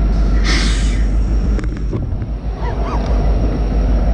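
Wind buffeting the microphone on an open boat on the water: a rough, steady low rumble, with a brief rushing hiss about half a second in.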